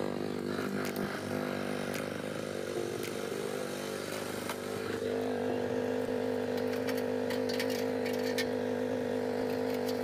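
Honda RS150R motorcycle's single-cylinder engine running. Its pitch wavers slightly at first, then holds steady from about halfway through, with scattered light clicks over it.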